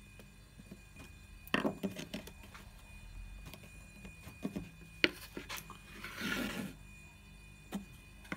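A wooden lens board and its metal lens flange being handled on a wooden workbench: a few sharp knocks and clicks, and a short scraping rub about six seconds in.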